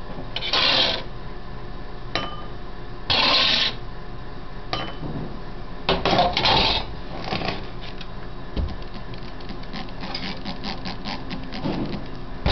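Metal spoon scraping fine soil from a brass sieve pan, three scrapes of under a second each, with clinks as soil is tipped into a porcelain dish. Near the end comes a quick run of light clicks and taps.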